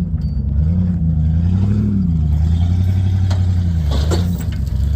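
Old Ford F-150 pickup's engine under heavy load, revving up and down repeatedly as it strains to tow a dead backhoe by a chain.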